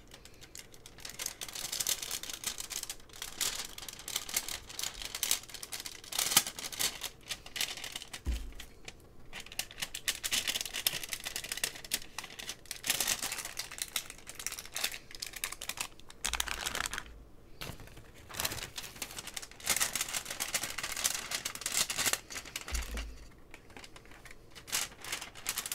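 Crinkly packaging being unwrapped by hand: dense crackling and rustling with many small clicks, in repeated bursts with short pauses.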